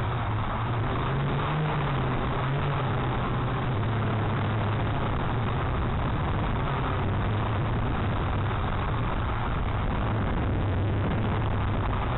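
Small toy quadcopter's motors running, their low hum wavering up and down in pitch as the drone fights strong gusts, over a steady rush of wind noise.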